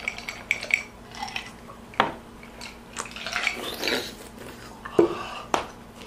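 Drinking glasses and cups clicking and knocking as they are handled and set down, several sharp knocks a second or so apart. Between them comes noisy breathing through an open mouth, from the burn of super-hot peppers.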